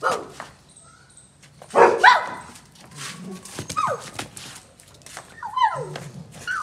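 Rottweilers barking and yelping in play: a loud bark about two seconds in, then short yelps that fall in pitch, around four seconds and again near six.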